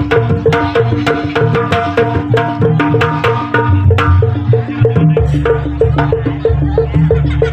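Jaranan music from a gamelan ensemble: quick, evenly repeated metallophone notes over hand-drum (kendang) strokes and a low drum pulse, which thickens about five seconds in.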